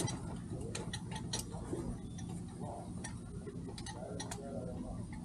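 Irregular light clicks and knocks of hands working at a boat's lines and fittings, with a louder knock right at the start, over a steady low hum.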